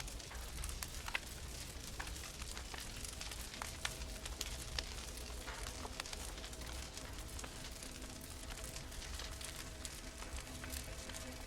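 Wood fire crackling in an open fireplace: irregular sharp pops and snaps over a low rumble.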